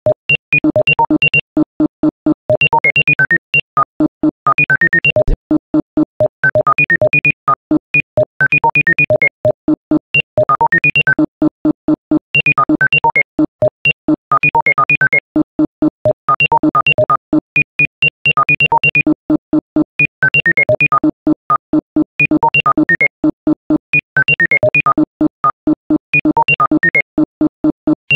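Rapid runs of short synthesized tone beeps jumping from pitch to pitch, in groups of about a second and a half with brief breaks between them: number sequences rendered as tones.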